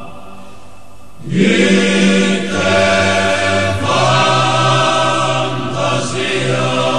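Sardinian male choir singing a cappella in close harmony on long held vowels. A softer held chord gives way about a second in to a louder phrase, with a deep bass voice underneath that moves to a higher note partway through.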